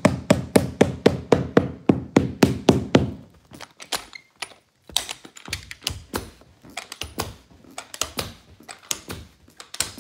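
Claw hammer tapping down tap-down gripper metal, the metal threshold strip that holds the carpet edge: quick, even strikes at about four a second for roughly three seconds, then scattered, lighter knocks.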